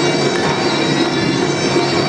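Armenian folk dance music playing at a steady, even level, with a wind instrument holding a sustained melody.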